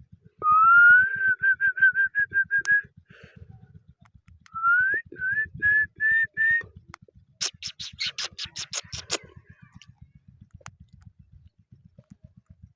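Indian ringneck parrot whistling: two runs of short whistled notes, each opening with an upward slide, followed about halfway through by a burst of about ten harsh, rapid screeches.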